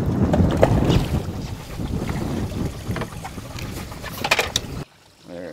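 Wind buffeting the microphone out on an open boat on the lake, a dense low rumble with a few short clicks about four seconds in; it cuts off suddenly near the end.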